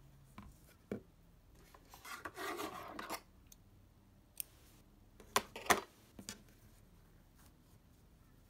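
Small metal embroidery scissors cutting the crochet yarn: a rustle of yarn being handled, then a few sharp snipping clicks of the blades about five and a half seconds in.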